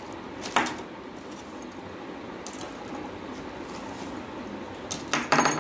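Metal spoon fishing lures clinking as they are handled and set down on a wooden table: a sharp clink about half a second in, a fainter one midway, and a quick cluster of jingling clinks near the end.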